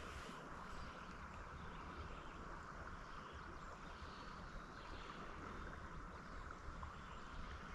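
Faint, steady ambience of a shallow river: water flowing, with a low rumble underneath.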